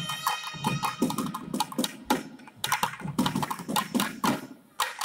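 Thavil drums playing a fast run of sharp, crisp strokes. The nadaswarams' held note dies away about a second in, leaving the drums alone.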